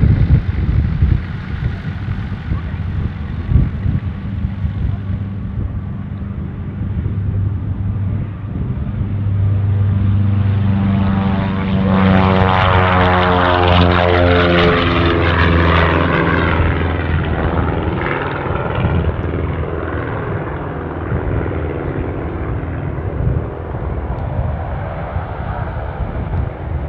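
Light twin-engine propeller airplane taking off and climbing out past: the engine drone builds, is loudest about halfway through with its pitch falling as it passes, then fades as it climbs away.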